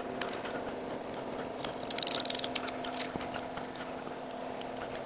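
A steady low hum with a few faint clicks as pine boards are handled, and a short scratchy rustle about two seconds in.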